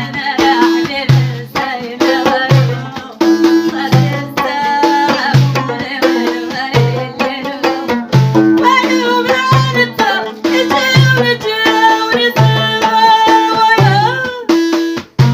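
Folk song with a steady low hand-drum beat, about three strokes every two seconds, under a melodic line that bends in pitch.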